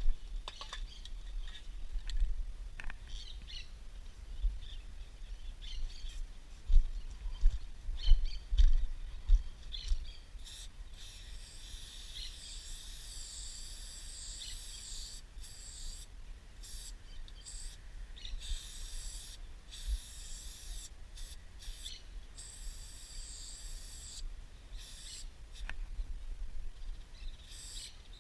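Aerosol spray paint can hissing in short bursts with brief pauses between them, from about ten seconds in until near the end, as yellow letters are sprayed. Before that there are low knocks and clicks of cans being handled.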